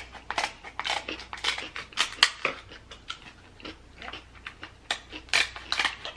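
Kitchen shears snipping through the shell of a cooked king crab leg: a run of irregular sharp snips and crackles.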